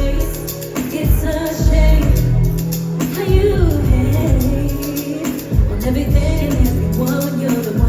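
Live R&B song: a woman singing lead over the band, with a heavy pulsing bass.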